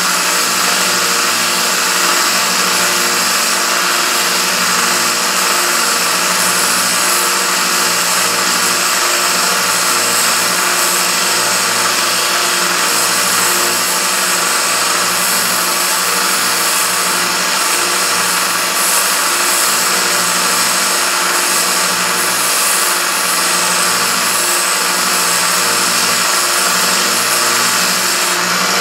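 Narrow bench belt sander running steadily with a metal tool held against the belt, grinding it and throwing sparks; a continuous even whir with a gritty grinding hiss.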